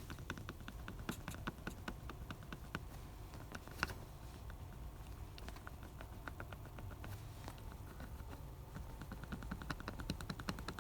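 Many light, irregular clicks and taps of plastic seat-headrest parts being handled, with a quicker run of ticks near the end.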